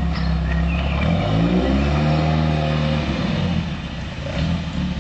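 TVR Vixen 1300 sports car's engine running, its note rising about a second in and falling back again a couple of seconds later.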